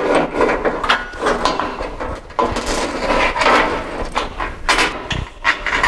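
Steel equalizer cable of a two-post car lift being fed up through the steel column and over the sheave, with irregular scraping, rubbing and knocks of cable and hands against the column.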